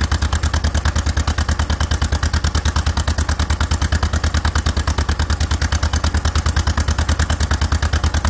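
1954 John Deere 40's two-cylinder engine idling steadily, its exhaust beating in an even, quick rhythm of about nine pulses a second.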